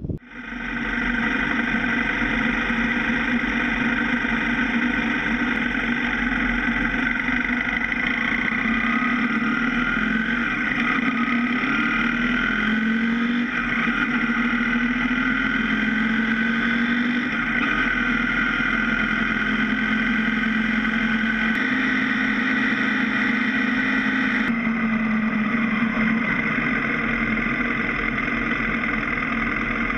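BMW F650 GS motorcycle engine running at road speed, heard from a camera mounted low on the bike: a steady, buzzy drone whose pitch wavers and steps up and down a few times as the speed changes.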